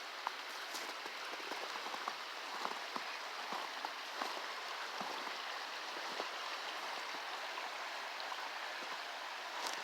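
Rushing river water and a waterfall, a steady hiss of fast-flowing water, with faint irregular clicks scattered through it.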